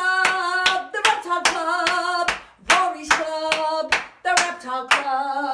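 A woman singing a short chant in a sing-song voice, clapping her hands in time, about two claps a second.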